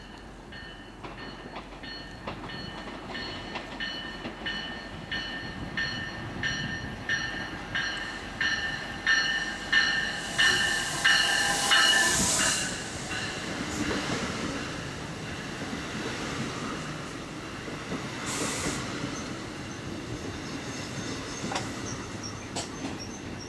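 A train passing through at speed. Its wheels clatter in a steady rhythm over rail joints and ring high on the rails, getting louder to a peak about halfway through, then easing off.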